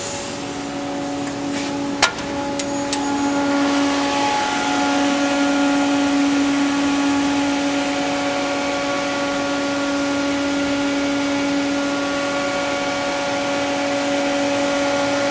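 Steady whirring hum of a powered-up Haas VM2 CNC vertical machining center at idle, several steady tones from its running electrical-cabinet fans and drives, a little louder after about four seconds. A single sharp click comes about two seconds in.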